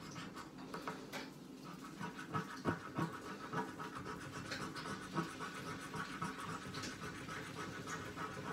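Scratch-off lottery ticket being scratched: quick, irregular scraping strokes over the card's coating, a few of them louder.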